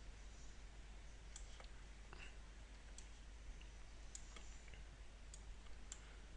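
Faint, scattered computer mouse clicks, about ten short ones spread unevenly, over a steady low hum and hiss.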